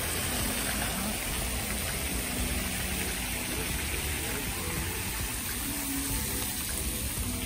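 Steady rush of running water from a decorative fountain pool, with faint music under it.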